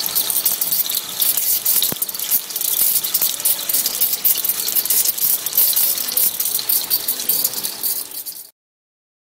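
Agie DEM 315 wire EDM machine cutting: a dense, fast crackle of spark discharges over rushing dielectric water. It cuts off abruptly near the end.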